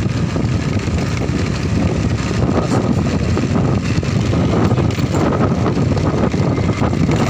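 Motorcycle riding along a rough, potholed gravel road: its engine runs steadily under a dense, unbroken rumble of road and wind noise.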